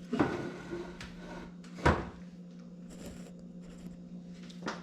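Knocks and clunks of the camera being handled and set in place: two sharp loud knocks about two seconds apart and a lighter one near the end, over a steady low hum.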